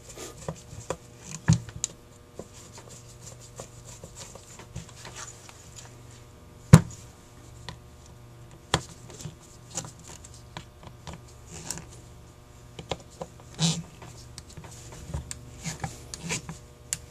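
Screwdriver and metal parts of a Carter YFA carburetor being handled during reassembly: scattered light clicks and knocks, the sharpest one about seven seconds in, over a faint steady hum.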